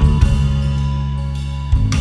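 Background music: a rock-style track with sustained bass notes, guitar and a drum hit at the start and another near the end.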